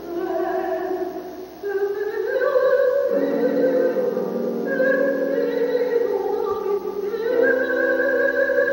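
Soprano singing a zarzuela romanza in operatic style, with long held notes. The line climbs to a higher sustained note about two seconds in and again near the end.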